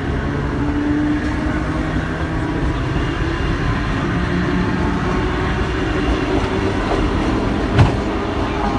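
Kotoden 120, a vintage electric railcar, running along the line, heard from inside the car: a steady rumble of wheels on the rails with a low hum, and one sharp knock near the end.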